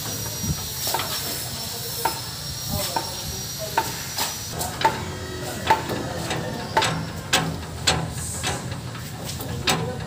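Irregular sharp clicks and knocks from a backhoe's filter canister and its fittings being gripped and worked by hand, roughly one a second and closer together in the middle, over a steady low hum.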